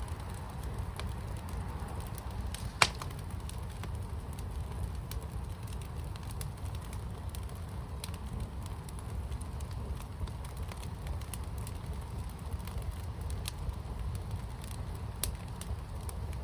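Wood fire in a firepit crackling, with scattered sharp pops over a steady low rumble and one loud pop about three seconds in.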